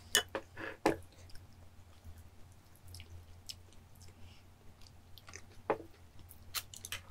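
Eating at a table: soft chewing and a few sharp clicks of chopsticks against dishes, bunched in the first second and again near the end.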